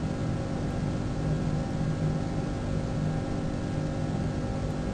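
Steady low mechanical hum with a few faint held tones, unchanging throughout.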